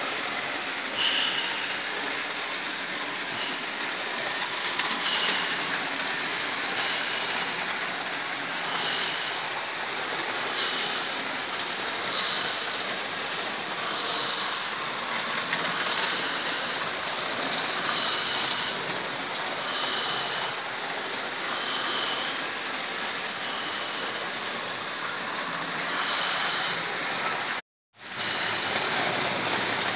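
Model railway trains running on a layout: a steady whir and rattle of small motors and wheels on track, with a faint high chirp recurring about every two seconds. The sound cuts out for a moment near the end.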